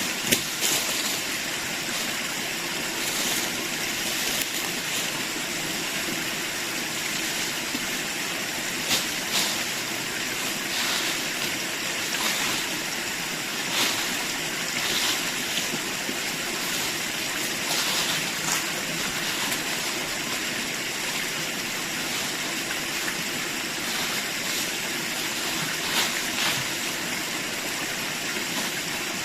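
Steady rushing of flowing stream or river water, with a few faint knocks.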